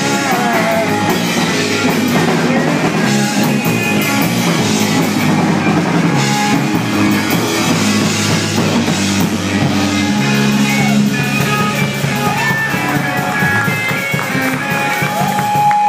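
Live rock band playing loud, with distorted electric guitars and a drum kit. A single high note holds steady near the end as the song winds down.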